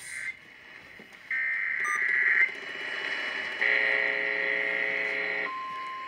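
NOAA Weather Radio emergency alert signal over a radio: two harsh, buzzy SAME data bursts of about a second and two seconds. Near the end a steady single-pitch 1050 Hz attention tone begins, announcing the tornado watch message that follows.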